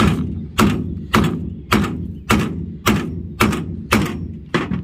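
Hammer striking a grommet-kit hole cutter nine times in a steady rhythm, about two blows a second, punching a hole through a rubber-backed rug resting on a metal truck bed. Each blow is a sharp knock with a short ring.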